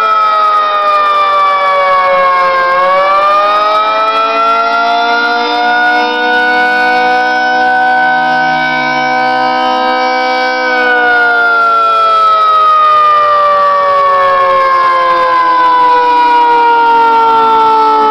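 1973 Federal Signal 2T22A dual-tone outdoor warning siren wailing: its chord falls, rises again, holds steady for about five seconds, then slowly winds down. The owner thinks it sounds like its high-end intake is blocked.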